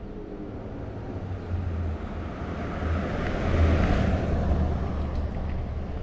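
Ride on an electric rental scooter: steady low road rumble and wind noise that swell to their loudest about four seconds in.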